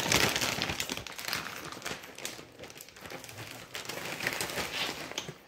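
Food packaging crinkling and rustling close to the microphone as it is handled: dense, irregular crackles, loudest at the start.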